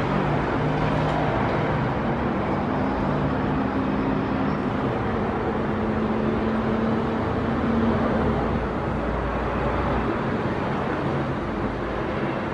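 Steady distant road traffic: a constant rush of noise with engine hums that rise and fade as vehicles pass.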